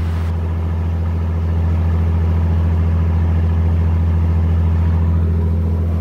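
White 2150 tractor's Cummins diesel engine running at a steady speed, driving a lagoon pump that is pumping thick slurry.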